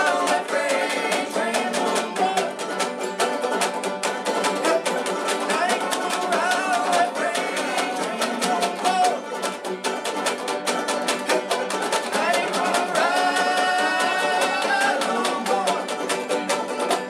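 Three five-string banjos picking a fast tune together, with a man singing over them.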